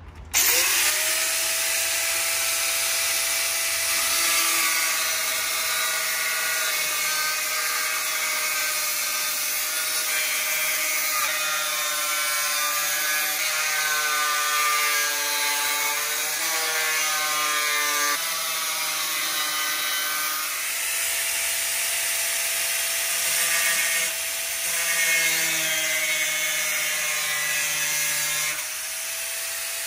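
Corded angle grinder spinning up right at the start, then running with a steady high whine as its disc cuts through the sheet-metal edge of a vehicle sun visor. The pitch wavers and sags as the disc is pressed into the metal.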